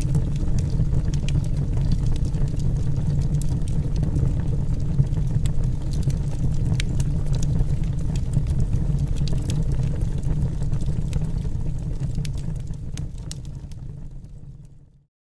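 Steady deep rumble with scattered crackling clicks over it, fading out near the end.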